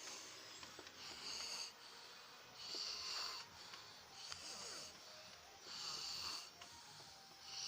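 A sleeping person snoring, a hissing breath about every second and a half, four in all and a fifth starting at the end.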